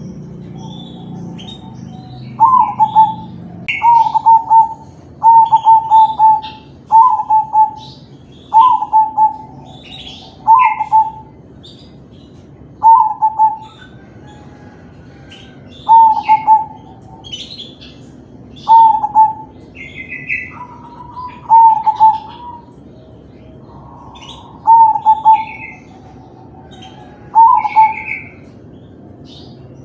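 Crossbred zebra dove (perkutut) singing its full cooing song: about a dozen short, bright coo phrases, one every two to three seconds. Faint high chirps of small birds are heard in between.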